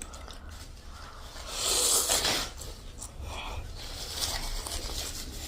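A loud sucking sound through the mouth while eating spicy noodle soup, about a second and a half in and lasting about a second, with faint eating noises around it.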